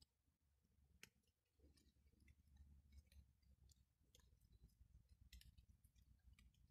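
Near silence: a faint low rumble with scattered small clicks and ticks.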